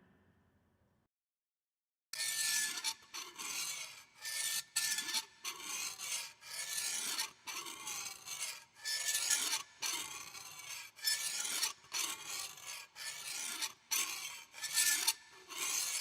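Near silence for about two seconds, then a long run of harsh rasping scrapes, uneven strokes at roughly two a second, like a rough surface being scratched or filed.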